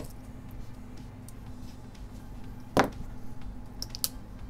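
Handling noises from taking apart an iPhone: a sharp click at the start, one loud knock a little before halfway through, such as a small tool set down on the bench, and a few light clicks near the end. A steady low electrical hum runs underneath.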